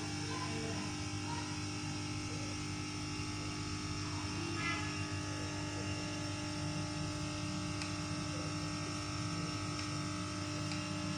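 Steady background hum made of several fixed, unchanging tones over low noise, with no speech.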